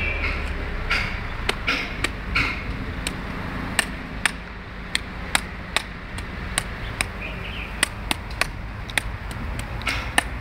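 Machete blade chopping at a hand-held coconut: a quick run of sharp chops and knocks, about two a second, as the husk is cut away.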